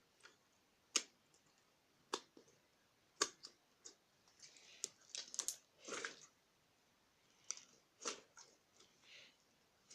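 Honey slime being squished and pulled by hand, giving irregular sharp sticky pops and clicks about once a second, with softer squelching between them.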